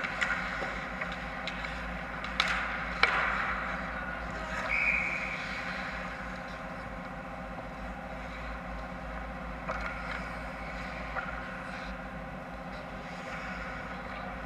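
Ice hockey play on an indoor rink: skates scraping and sticks clattering on the ice, with a few sharp knocks in the first three seconds and a short high tone about five seconds in, over a steady hum.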